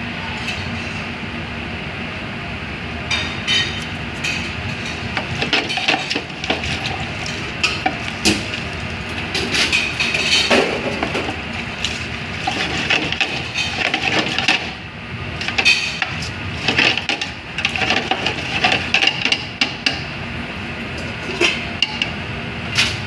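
Wooden spatula stirring seafood in a stainless steel stockpot, with irregular knocks, clinks and scrapes against the pot's side. A steady background noise runs underneath.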